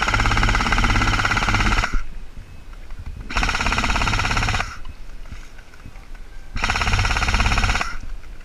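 Airsoft electric light machine gun, a G&G CM16-LMG, firing three long full-auto bursts: the first about two seconds long, the next two about a second and a half each, with short pauses between.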